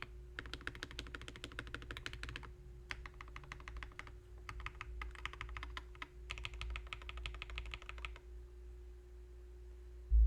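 Fast typing on a mechanical keyboard fitted with lubed Akko CS Vintage White linear switches, in several quick bursts with short pauses between them. The typing stops about two seconds before the end, and a single low thump comes at the very end.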